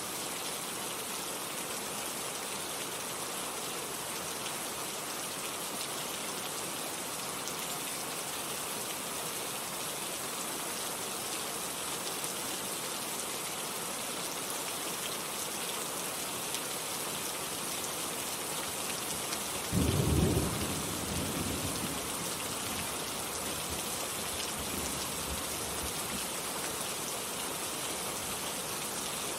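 Steady heavy rain hissing, with a single thunderclap about two-thirds of the way through that rumbles away over several seconds.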